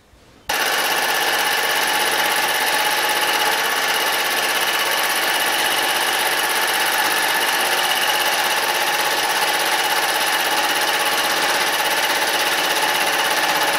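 Bernardo mill-drill face-milling a metal block with a 50 mm cutter head at about 500 RPM: a steady, even cutting noise with a whine of several held tones. It starts abruptly about half a second in.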